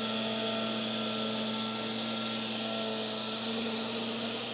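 Hoover WindTunnel Tangle Guard upright vacuum running steadily on carpet: a constant motor hum with a high whine over the noise of the suction airflow.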